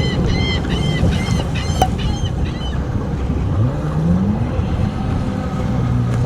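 A boat engine runs low and steady, and about three and a half seconds in it revs, rising in pitch. Over the first two and a half seconds a bird gives quick repeated calls, about three or four a second.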